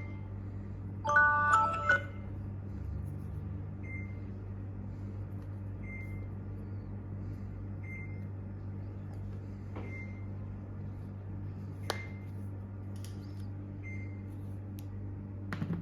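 A smartphone plays a short run of marimba-like ringtone notes, then gives a faint short high beep about every two seconds over a steady low hum. A few sharp clicks come in the second half.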